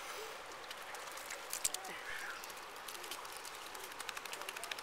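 Steady rush of river water, with small splashes and a scatter of quick ticks as a wet dog climbs out of the river onto flat rock.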